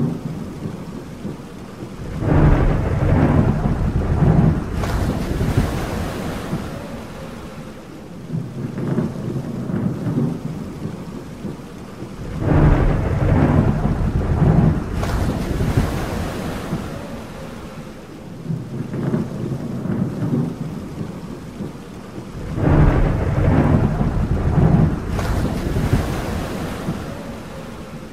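Thunder rumbling three times, about ten seconds apart, each roll swelling and slowly dying away, over steady rain.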